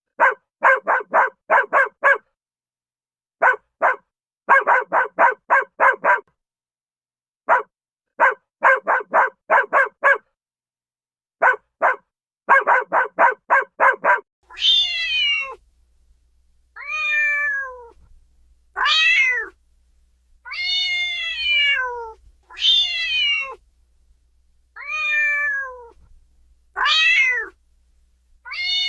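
Rapid runs of short, clipped animal calls, five or six at a time, fill about the first half. Then a domestic cat meows about seven times, each meow a falling cry about a second long, over a low hum.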